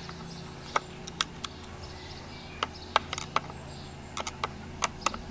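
Irregular sharp clicks and taps of hard strimmer parts being handled and knocked together during a strip-down, some in quick little clusters, over a steady low hum.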